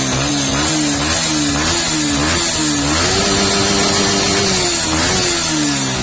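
Yamaha R15 v2's 150 cc single-cylinder four-stroke engine running after starting on a spare NGK spark plug, which shows the original Denso iridium plug was the fault. The throttle is blipped in quick revs about twice a second, then held higher for about two seconds and let fall back.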